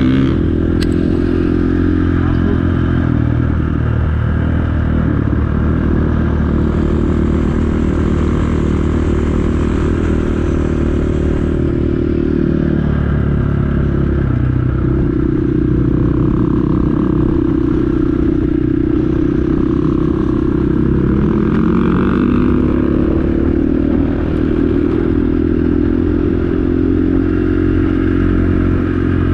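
Dual-sport motorcycle engine running while riding, heard from on the bike, its pitch rising and falling with the throttle: it drops about twelve seconds in and climbs again around fifteen seconds and near the end.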